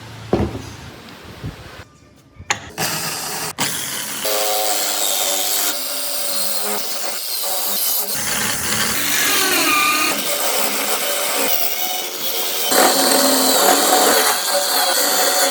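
A few knocks on wood, then from about three seconds in a handheld power tool runs continuously against wood, its pitch wavering as it works.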